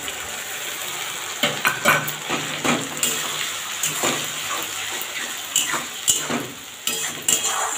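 A metal spoon scraping and clinking against a metal kadai as onions, tomato and ginger-garlic paste are stirred in hot oil, over a steady sizzle. This is the masala being slow-fried (kosha) for a Bengali chicken curry.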